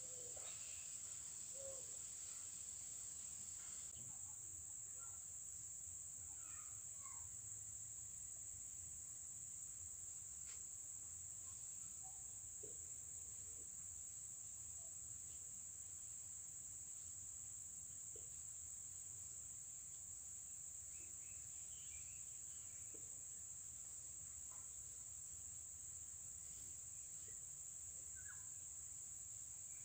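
Faint, steady, high-pitched insect chorus that drones on without a break, with a few scattered faint chirps.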